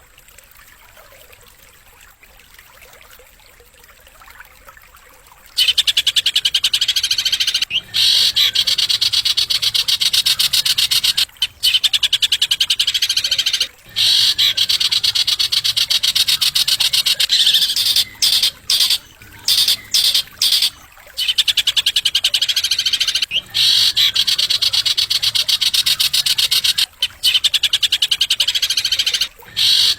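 Songbird singing long, very fast high-pitched rattling trills, with short pauses between phrases; the song starts about five seconds in after a quiet stretch of hiss.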